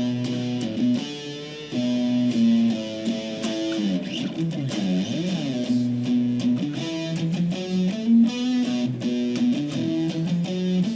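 Electric guitar played through a Boss SD-2 Dual Overdrive pedal: held notes and chords, with the pitch sliding up and down about four seconds in.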